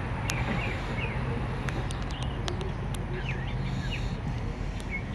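Small birds chirping in short bursts, near the start and again about three seconds in, over a steady low hum and a few faint clicks.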